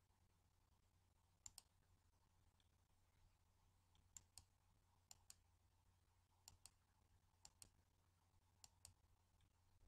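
Faint computer mouse-button clicks: six quick click pairs spread across a few seconds as the image-viewer buttons are pressed, over a very quiet background with a low steady hum.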